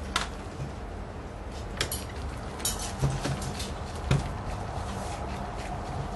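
Irregular sharp clicks and knocks, the loudest about four seconds in, from a screwdriver and gloved hands working on the screws at the bottom corner of an HP dv8000 laptop's screen frame.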